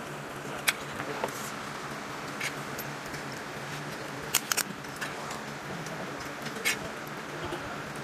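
Cooked blue swimmer crab shell cracking as it is broken apart by hand: a sharp crack about a second in, a quick run of three cracks midway, and a couple of smaller snaps, over a steady low hum.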